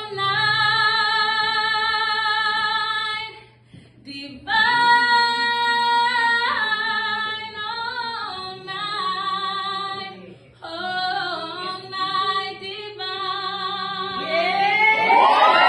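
A woman singing solo a cappella, in phrases with long held notes and a wide vibrato, with short breaks between phrases. Near the end, listeners start to whoop and cheer.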